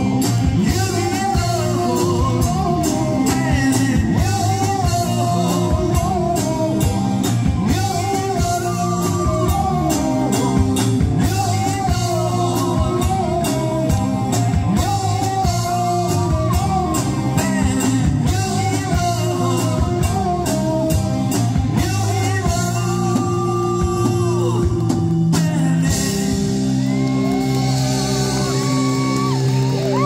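Live rock band playing through PA speakers: a man singing into a microphone over electric guitars, drum kit and keyboard. Near the end the singing stops and the band carries on with held chords.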